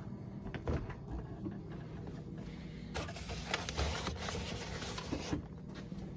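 Kitchen utensils and dishes being handled: scattered clicks, taps and scrapes, busier in the second half, over a faint steady low hum.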